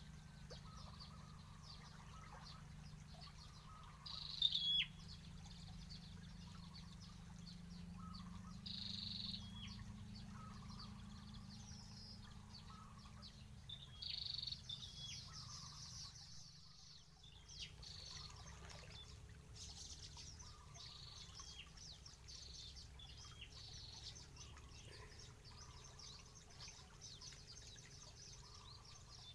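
Short bird calls repeating every few seconds, some ending in a quick falling note, over the steady low rush of a fast, swollen stream.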